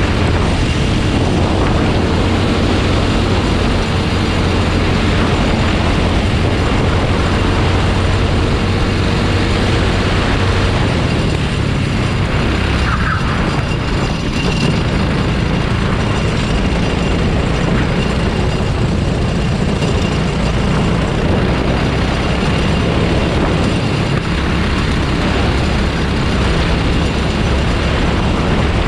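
Rental go-kart engine running on track, heard up close with heavy wind and road rush; its low note holds steady and shifts a few times.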